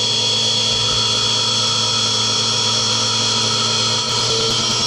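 CNC mini mill spindle running steadily at about 7000 rpm while a 6 mm 90° chamfer tool cuts aluminium under flood coolant: a steady high machine whine over a low hum, which shifts slightly about four seconds in.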